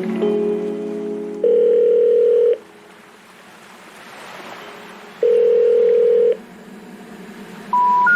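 Background music of held electronic tones: two loud steady tones about a second long each, with quieter sustained tones between, then three short beeps stepping up in pitch near the end.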